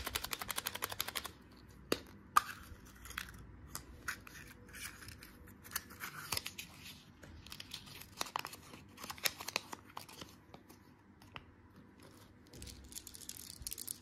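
A fast run of small plastic clicks as a yellow plastic toy capsule is handled and opened, with a sharp click a couple of seconds in. Then a small paper packet holding a plastic toy figure is torn and crinkled open in short bursts.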